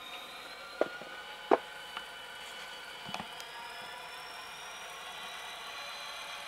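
Faint steady diesel idle from a model locomotive's Tsunami sound decoder through its tiny speaker, thin and without bass, with a few light clicks in the first few seconds.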